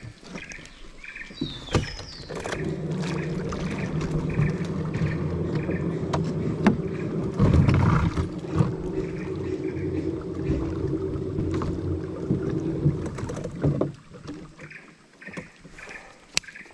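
Steady motor hum that starts a couple of seconds in and cuts off abruptly near the end, with a few bird chirps at the start.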